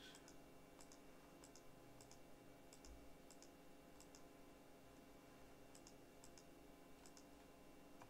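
Faint computer mouse clicks, each a quick press-and-release pair, about a dozen of them at irregular intervals of half a second to a second, as the SDR receiver's tuning frequency is stepped digit by digit. A faint steady hum lies underneath.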